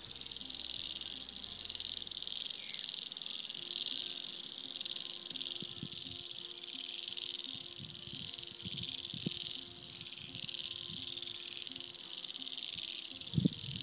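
Steady chorus of trilling insects, a high, fast-pulsing buzz that runs on unbroken. A few low rumbles come in after the first few seconds, and a single low thump near the end.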